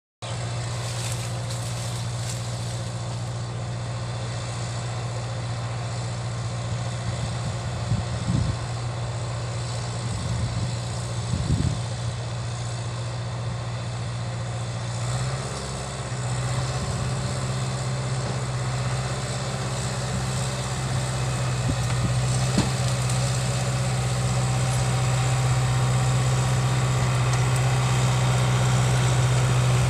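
Caterpillar bulldozer's diesel engine running steadily. Its pitch steps up slightly about halfway through, a few brief louder sounds come in the first half, and it grows gradually louder toward the end.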